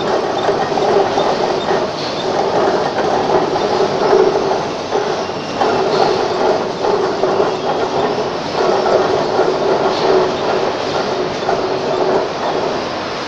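Pallet stretch-wrapping machine running as it turns a pallet of bottles. It makes a steady mechanical rumble and rattle, with a hum that drops out briefly every few seconds.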